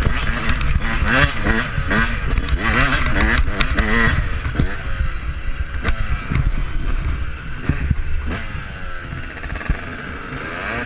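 Yamaha YZ125 two-stroke dirt bike engine revving up and down in quick, repeated surges, then settling after about five seconds into slower, smoother rises and falls in pitch. A few sharp knocks come through now and then.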